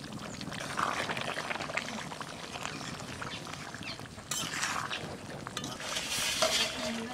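Duck curry bubbling in a metal karai while a ladle stirs through it, with small clicks and scrapes throughout. Two louder rushes of noise come about four and six seconds in.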